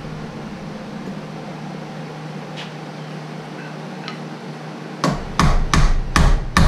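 Hammer striking framing lumber: a quick run of about five sharp blows starting near the end, after a few seconds of only a low steady hum.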